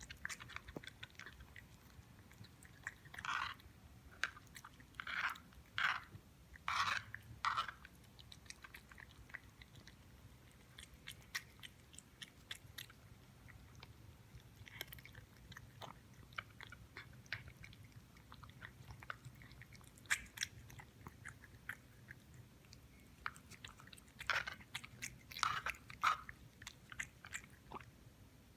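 Siamese cat chewing and crunching its food, with soft mouth clicks throughout and clusters of louder crunches a few seconds in and again near the end.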